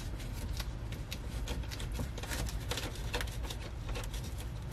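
Light, irregular metallic clicking and rattling, a few clicks a second, from a socket ratchet and wrench loosening the bolt that joins the brake booster pushrod to the brake pedal.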